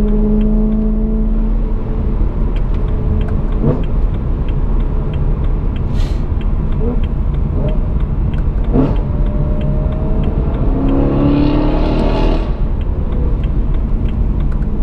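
BMW M3 E92's modified V8 heard from inside the cabin at Autobahn speed: a steady engine drone over road and tyre noise. About eleven seconds in, the engine note swells briefly and rises in pitch.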